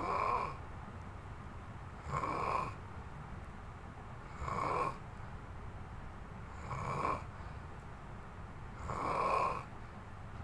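Snoring in a steady rhythm: short snores about every two and a quarter seconds, five in all.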